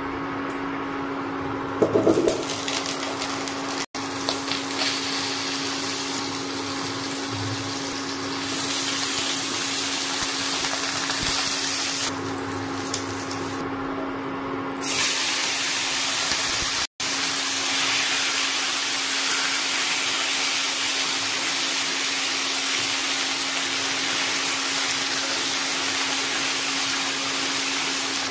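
Cooking oil heating in a nonstick pan with a light sizzle, then, about halfway through, raw chicken pieces sizzling loudly in the hot oil as they are stirred. A steady hum runs underneath.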